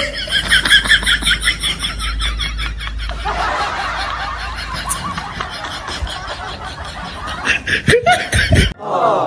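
Train passengers laughing, a quick run of laughs at first, then a mix of laughter and chatter, and another burst of laughs near the end. A low rumble runs underneath and cuts off shortly before the end.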